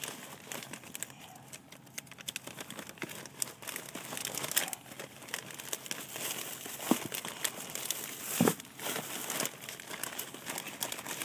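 Plastic bags and sleeves crinkling with papers rustling as hands dig through and shift a stack of collected programs and photos: a steady run of irregular crackles, with louder rustles about four and a half and eight and a half seconds in.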